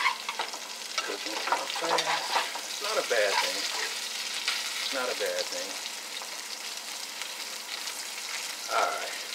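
French fries sizzling in hot oil in a frying pan, stirred and turned with a spatula that clicks and scrapes on the pan.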